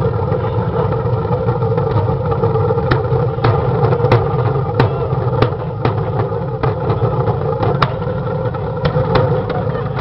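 The art vehicle's motor running steadily with a low rumble, with about ten sharp clicks at irregular intervals from about three seconds in.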